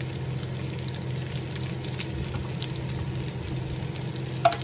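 Asparagus frying in butter and garlic in a non-stick pan: a steady sizzle with scattered small crackles over a low hum. Near the end a wooden spoon knocks once against the pan.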